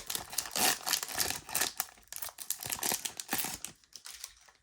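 Foil wrapper of a Pokémon booster pack crinkling as it is torn open and handled, an irregular run of crackles that dies away near the end.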